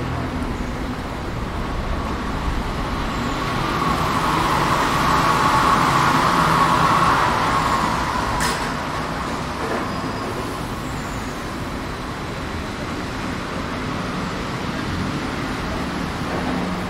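City street traffic with one road vehicle passing close by: its sound swells, is loudest about six seconds in, then fades. A single sharp click follows shortly after.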